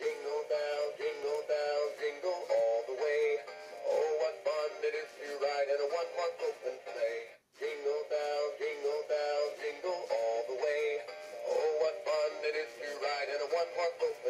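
Animated singing Christmas-tree toy singing a Christmas tune over its own music backing, with a brief break about halfway through.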